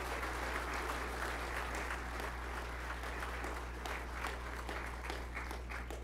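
Crowd applauding, the clapping thinning out toward the end.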